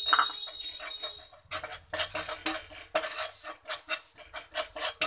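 A wooden spatula stirring spices in a frying pan, scraping and knocking against the pan about four times a second. A high steady whistling tone fades out about a second and a half in.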